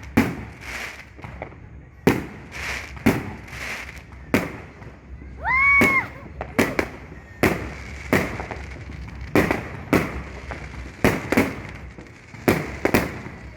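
Fireworks and firecrackers going off in a rapid, irregular series of sharp bangs. About five seconds in, a whistling firework gives a rising whistle that holds briefly and then stops.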